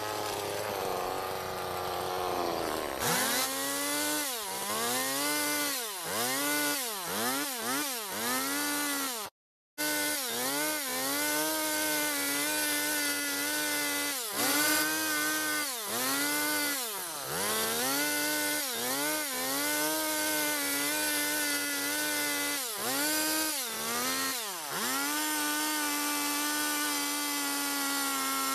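Stihl chainsaw carving wood. Its engine revs up, holds a steady high pitch, then drops back and climbs again over and over as the throttle is worked through short cuts. The sound cuts out completely for a moment about nine seconds in.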